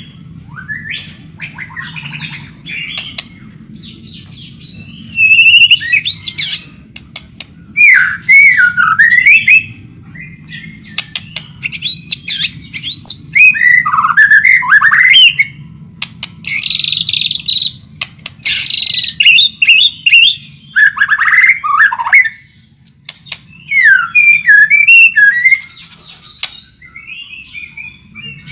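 White-rumped shama (murai batu) singing a loud, varied song: phrases of sliding whistled notes mixed with harsh rasping notes, coming in bursts separated by short pauses, over a steady low hum.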